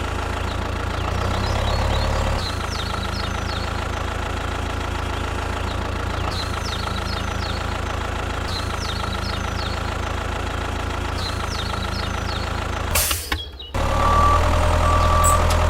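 A steady engine-like running sound with a strong low hum, a little louder for the first couple of seconds. It drops out suddenly near the end and gives way to a different, louder machine sound carrying a high tone.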